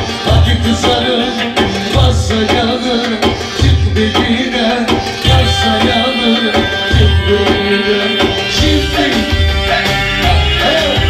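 Turkish Romani dance music (roman havası): loud, regular drum beats with hand-drum strokes under a melody line.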